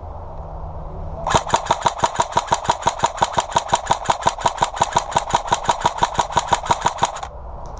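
Airsoft rifle firing a steady string of shots, about six a second, for roughly six seconds, then stopping abruptly.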